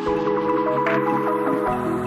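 Background electronic music with quick repeated short notes over held tones.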